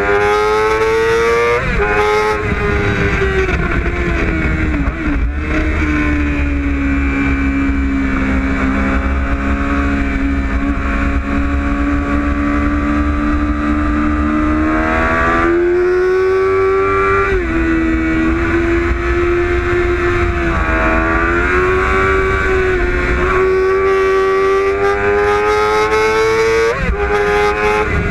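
Sport motorcycle engine on a track lap, heard from an onboard camera: the note climbs under throttle and drops sharply at gear changes, about two seconds in and again near the end, and holds a lower, steadier note through a long stretch in the middle. A low rush of wind on the microphone runs under it.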